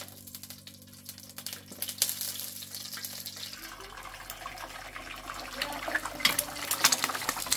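Water running and splashing, with many small clicks, getting louder over the last few seconds.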